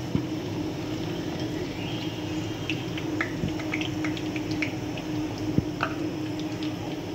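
Yellow-lentil fritters deep-frying in hot oil: a steady sizzle with many small scattered pops and crackles. A metal slotted spatula clicks against the pan now and then as the fritters are scooped out.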